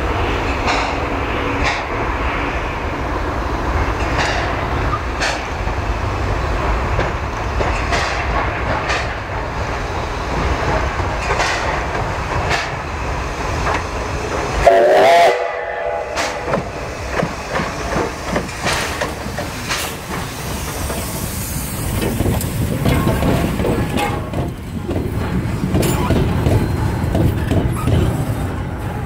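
LV-class steam locomotive running slowly, with a steady rumble of the running gear and regular knocks about once a second. Its whistle gives one short blast about halfway through, the loudest sound here. The rumble grows heavier near the end as the engine passes close.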